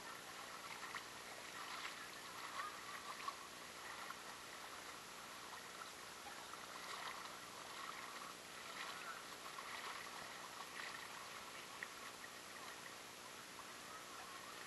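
Shallow, clear freshwater creek flowing and gurgling along a grassy bank, a faint, irregular rippling with small crackles.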